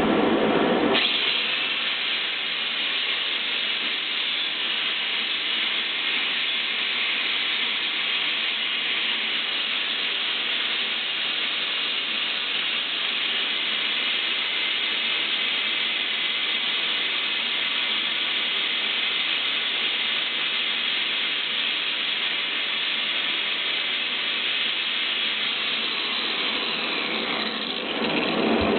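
Stone being sanded: a steady, even hiss of abrasive working the surface. It starts about a second in and eases off near the end.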